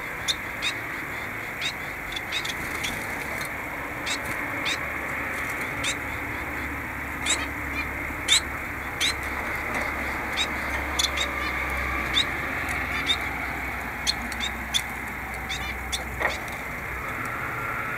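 Caged finches chirping: many short, sharp high calls at irregular intervals over a steady background hiss.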